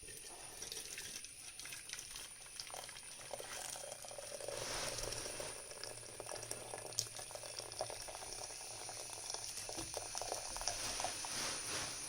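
A small pot of water with herbs, crushed ginger and peppercorns boiling on the stove: steady bubbling with many small pops, a little louder after about four seconds.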